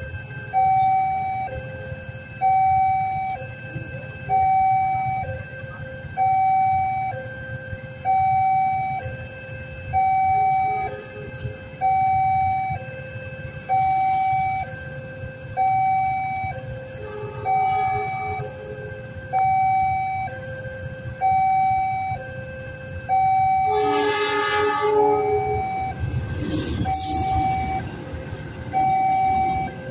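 Railroad level-crossing warning signal sounding its repeating two-tone electronic alarm about every two seconds, over the low rumble of idling motorcycle engines. About 24 seconds in, a diesel locomotive's horn sounds for about two seconds as the train approaches the crossing, and train noise follows as it reaches the crossing.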